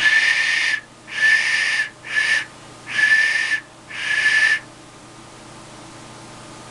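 Handmade clay duck whistle blown five times in short blasts, each a steady high note with an airy hiss, the third blast shortest.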